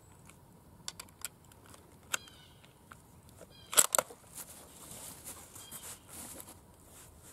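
Argentine 1891 Mauser being loaded at the bench: a few light metallic clicks as cartridges are pressed down through the clip guide into the magazine. Just under four seconds in comes a sharp double clack as the bolt is run forward and locked.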